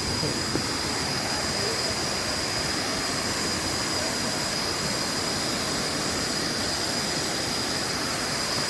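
Waterfall rushing: steady, unbroken noise of falling water, with a steady high-pitched tone over it.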